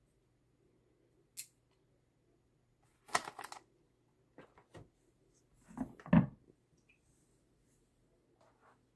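Kitchen handling sounds: a faint click, then a quick rattle of clicks about three seconds in, and about six seconds in a louder knock as something is set down on the counter.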